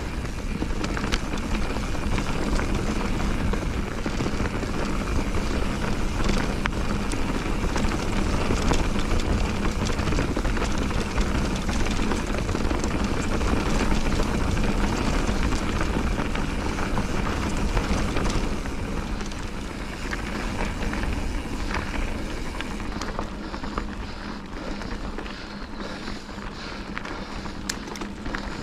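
Wind rushing over the microphone of a fast-moving rider, with the scrape and rumble of travel over the ground. It eases off about eighteen seconds in, and scattered clicks and rattles follow near the end.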